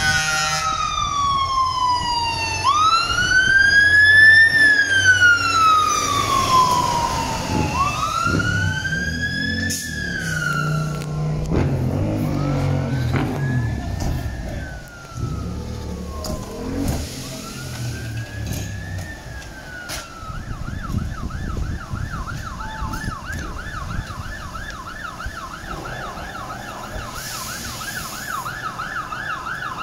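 Fire engine siren sounding a slow wail that rises and falls every few seconds and grows fainter, then switching about two-thirds of the way in to a fast, warbling yelp. A heavy engine rumbles underneath.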